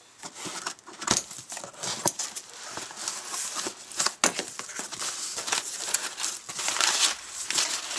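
A cardboard parcel being opened: scissors cutting packing tape, the flaps pulled back and crumpled kraft packing paper rustling, with small metal parts inside clinking in a run of sharp clicks.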